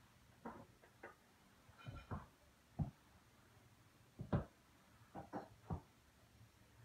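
Scattered soft knocks and thumps, about nine, irregularly spaced, from a person moving about and handling things.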